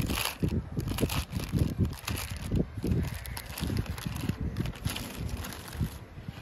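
Plastic packaging crinkling and rustling as hands pull a jersey out of a clear polybag and handle a plastic mailer envelope, with irregular crackles and dull low thumps throughout.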